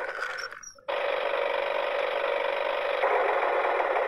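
A small red toy monster truck's wind-up motor whirring with a steady rattling buzz as the car is held down and rolled back. The sound breaks off briefly and starts again suddenly about a second in.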